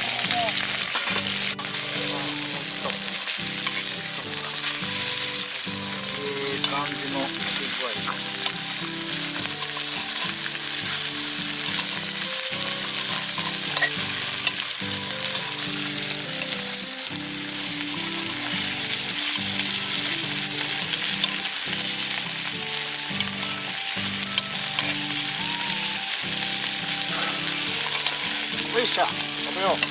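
Steak sizzling in a hot cast-iron skillet, a dense steady frying hiss. Metal tongs and a knife click and scrape against the pan every second or two as the meat is cut up.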